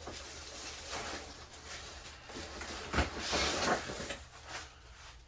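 Packaging and fan parts being handled during unboxing: scattered clicks and knocks with rustling, a sharp knock about three seconds in followed by a second of rustling.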